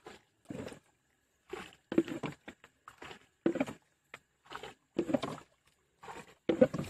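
A wet cast net being pulled and sorted by hand in a wooden canoe: a string of short, irregular rustles and knocks, about ten in all.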